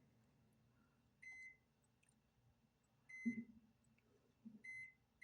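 Four faint, short electronic beeps at one high pitch, unevenly spaced, the last two close together.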